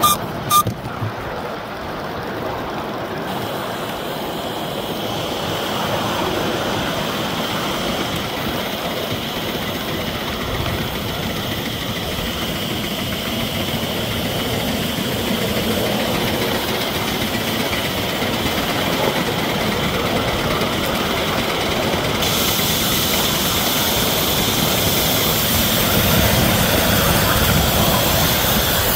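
5-inch gauge live-steam 15xx 'Speedy' pannier tank locomotive running along the track: a steady mix of engine and wheel noise with steam hissing. There is a sharp click right at the start, and the hiss grows stronger about three quarters of the way through.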